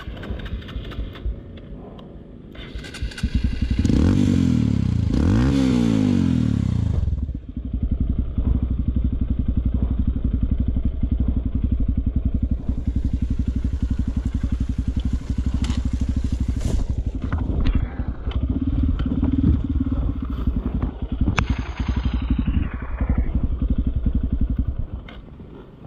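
Honda CRF dirt bike's single-cylinder engine revved hard twice, each rev rising and falling, then running steadily at low revs with an even pulse, with scattered knocks and scrapes. The engine sound drops away abruptly near the end.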